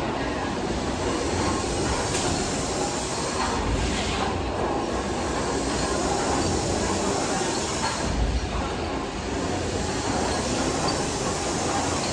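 Victorian rotative steam beam engine running: a steady mechanical clatter of gearing and motion work, with a deeper beat about every four seconds as the engine turns over.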